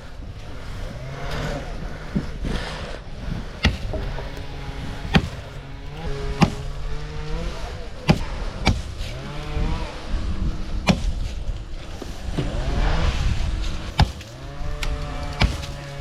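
Axe striking wood, about eight sharp chops spaced irregularly a second or more apart. An engine drones underneath, its pitch shifting now and then.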